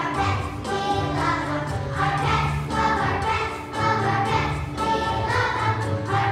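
Children's choir singing a song with instrumental accompaniment and a steady bass line.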